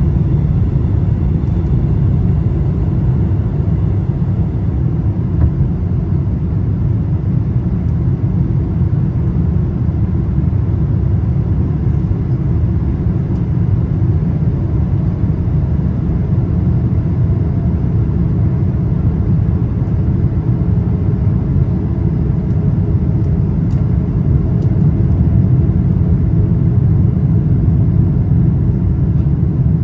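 Steady low rumble inside the cabin of a Boeing 777-200ER on approach with flaps extended: the engines and the rush of air over the fuselage. It holds level throughout, with a few faint ticks.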